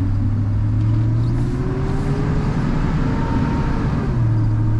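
A 2003 GMC Sierra pickup's engine and its belt-driven mechanical clutch fan running loud as the truck is given gas, with a rising whine. The pitch drops about four seconds in, then climbs again. The fan noise comes from the mechanical fan clutch that is to be replaced with electric fans.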